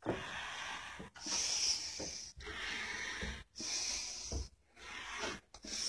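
A person breathing hard in several hissy breaths while climbing a makeshift ladder, with a few soft knocks of feet and hands on it in the second half.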